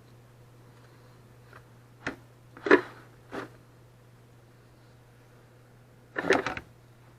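A few short knocks and clatters of kitchen utensils and dishes: one about two seconds in, the loudest just after, another soon after that, and a quick cluster of clatters about six seconds in, over a low steady hum.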